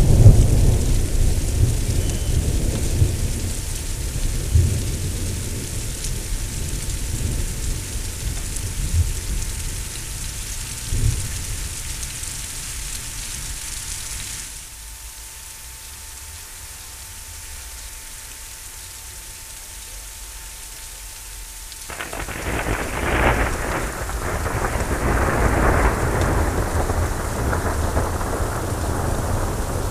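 Thunderstorm with rain: a loud thunderclap right at the start rolls into a long low rumble over the hiss of rain. After a quieter stretch, another loud crackling peal of thunder breaks about two-thirds of the way through and rumbles on.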